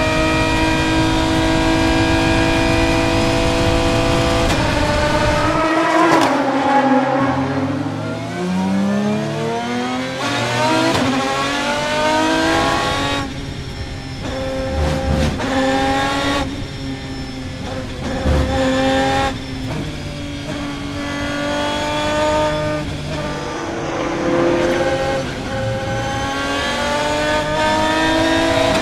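Aston Martin DBR9 race car's 6.0-litre V12, heard from inside the cockpit, running hard at high revs. About six seconds in the pitch drops as the car slows, then climbs in long rising sweeps as it accelerates again, with a final rise near the end.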